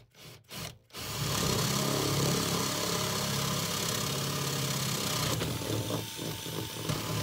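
Electric drill with a 12 mm bit boring a point-motor hole through cork underlay into the baseboard, run gently: a few short bursts of the trigger, then a steady run for about four seconds, then quieter and uneven near the end.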